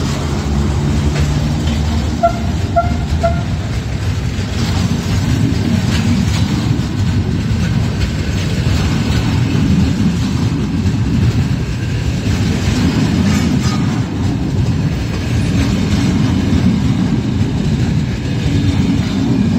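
Historic train, an FS E.636 electric locomotive hauling grey 45000-series passenger carriages, rolling past close by along a station platform: a steady, loud rumble of wheels on rails. Three short high beeps come about two seconds in.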